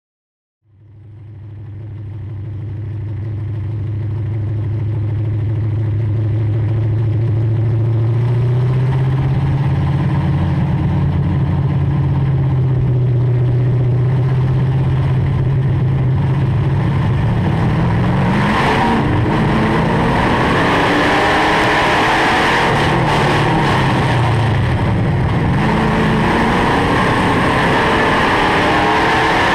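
UMP dirt-track stock car's V8 engine heard from inside the cockpit, fading in over the first few seconds and running at a fairly steady speed, then revving up and down repeatedly during the last third.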